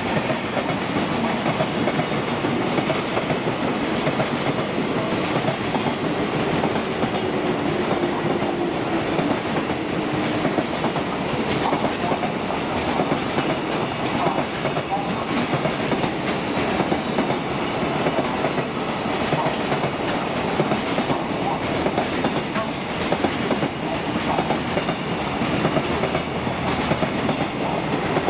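Freight train rolling past, its wagons' wheels clattering steadily over the rail joints.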